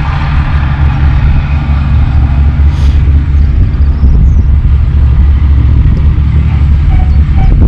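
Wind buffeting the microphone: a loud, unsteady low rumble with no clear pitch, with a few faint bird chirps over it.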